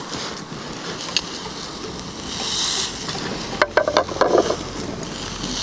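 Knife and tongs working cooked puff adder meat on a steel grill grate over a campfire, with sizzling and a few sharp crackles. About three and a half seconds in, a quick run of metal clicks and scrapes as the utensils hit the grate.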